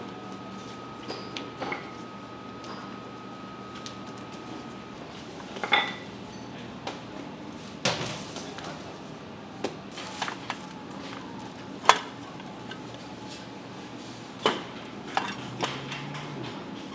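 Scattered sharp knocks and clacks from dough and hinged plastic bread moulds being handled on a wooden bakery bench, about ten over the stretch, over a steady background hum. A thin steady tone stops about five seconds in.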